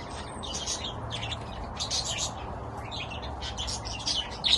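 A flock of budgerigars chirping and chattering, many short calls overlapping.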